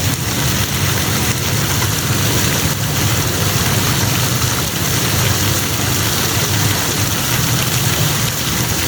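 Steady rush of falling water spray, with a low rumble underneath.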